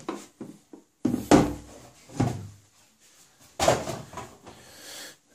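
Black plastic hard tool case being slid out of its cardboard box and set down on a wooden desk: a few light rubs and clicks, then three knocks over about two and a half seconds, the first the loudest.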